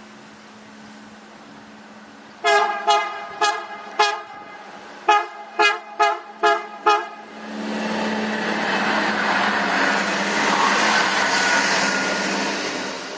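MAN 621 diesel trainset sounding its horn in nine short toots, four and then five, as it approaches. The passing train's rushing noise then swells and fades as it goes by.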